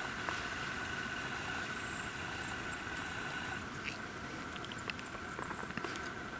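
Steady background hiss with a faint steady high tone running through it, and a few faint ticks and short high chirps in the second half.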